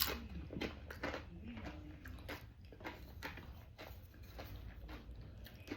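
Close-up eating sounds: a person biting and chewing food, with irregular crisp crunches and wet mouth noises.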